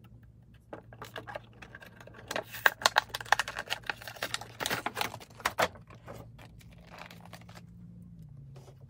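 A boxed fashion doll's cardboard and plastic packaging being handled and pulled open: a run of quick crackles and clicks, densest in the middle and dying away after about six seconds.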